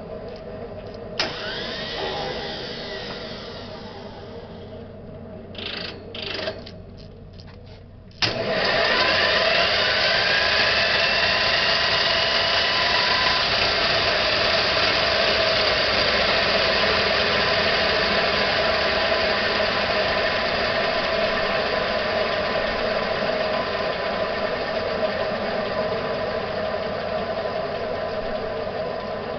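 Fairchild J44 turbojet starting. A whine spools up about a second in and fades, a few short bursts follow, then at about eight seconds the engine lights off with a sudden jump in loudness. Its whine rises as it accelerates and it settles into a steady idle.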